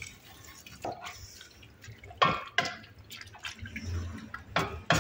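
Metal cookware clanking as a large pot of meat is tended: about half a dozen sharp knocks, a couple with a short metallic ring. A low steady hum comes in a little past halfway.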